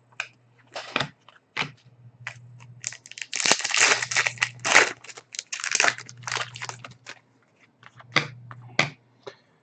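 Trading cards being handled and shuffled: bursts of papery rustling and crinkling with small clicks and taps, over a faint steady low hum.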